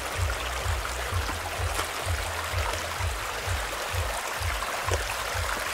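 A small stream running and trickling over the stones of a rocky track, an even rushing hiss, under an irregular low rumble.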